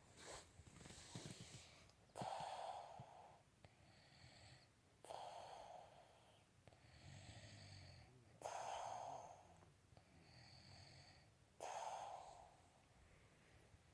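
A man snoring in sleep after drinking home brew: four snores about three seconds apart, with softer breaths between them.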